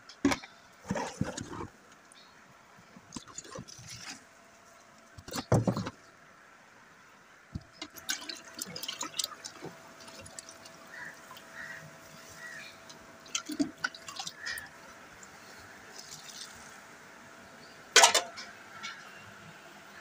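Watery cattle feed being scooped and poured with a steel bowl, splashing and trickling, with scattered sharp knocks and scrapes of the bowl against the containers; the loudest knocks come about five seconds in and near the end.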